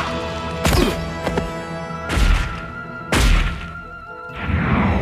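Cartoon orchestral score with held chords, broken by four heavy impact sound effects with a deep low end, roughly a second apart.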